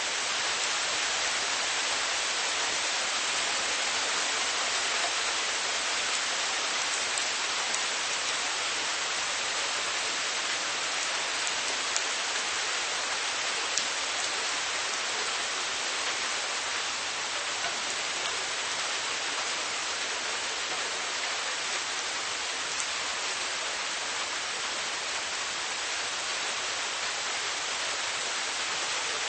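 Steady rain falling, an even hiss with a few sharper individual drop ticks.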